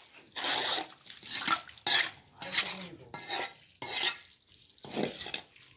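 Metal tools scraping and clattering through wet concrete mix during a concrete pour, in about seven irregular strokes.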